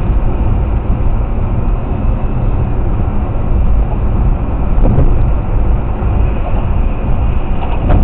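Steady road and tyre noise with engine rumble inside a moving car, picked up by a dashcam microphone, with a couple of brief knocks about five and eight seconds in.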